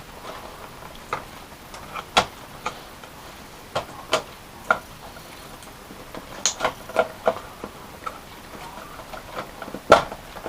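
Scattered clicks and knocks of a graphics card being worked into a PC case's PCIe slot and bracket openings: single taps early on, a quick cluster in the middle, and the loudest knock near the end.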